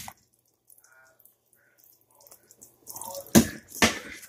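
Metal ladle stirring beef broth in a stainless steel pot, with liquid sloshing and dripping, then two loud knocks about half a second apart near the end.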